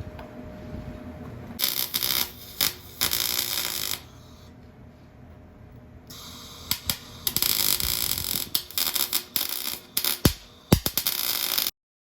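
Electric arc welding: two long stretches of harsh crackling hiss full of sharp pops, each starting and stopping abruptly as the arc is struck and broken. The sound cuts off near the end.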